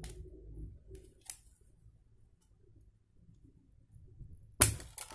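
Plastic clicks and taps from handling an opened Advan S50 4G phone, with a few light clicks early, a quiet stretch, then a sharp snap near the end followed by a quick flurry of smaller clicks.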